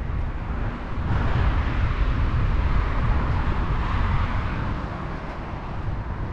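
Road traffic going past: a vehicle's tyre noise swells about a second in and fades toward the end, over wind rumbling on the microphone.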